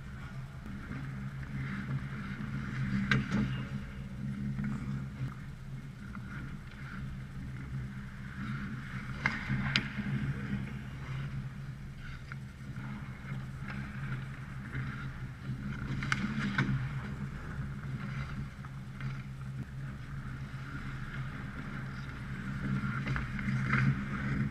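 Ice hockey rink sounds: a steady low hum under skate scraping, with sharp cracks of sticks and pucks several seconds apart, about 3 seconds in, twice around 9 to 10 seconds, about 16 seconds in, and near the end.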